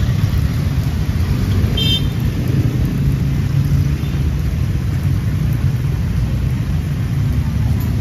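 Street traffic: a steady low rumble of vehicle engines running close by, with a brief high squeak about two seconds in.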